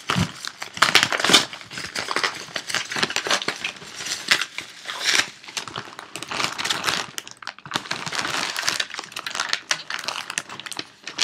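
Packaging being crumpled and pulled apart by hand as a tightly wrapped parcel is unwrapped: continuous crinkling with many irregular crackles.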